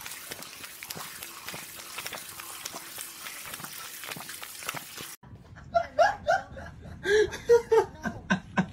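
Water running steadily from a sink tap for about five seconds, then cutting off suddenly. A person then giggles in short bursts.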